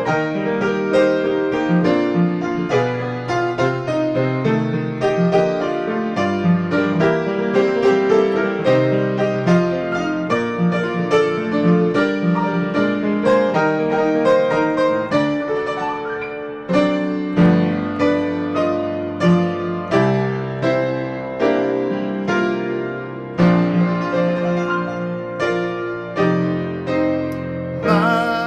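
Grand piano played solo, a dense run of notes and chords. After a brief dip about sixteen seconds in, the playing goes on with heavy chords about one a second.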